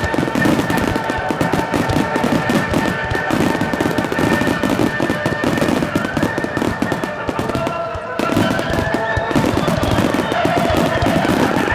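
Fireworks finale barrage: a dense, continuous run of rapid bangs and crackling bursts, easing briefly about eight seconds in before building again, with steady tones sounding over it.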